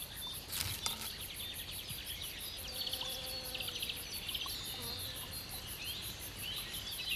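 Natural ambience of chirping insects and small birds calling: quick pulsed trills and short chirps, with a few gliding whistled notes.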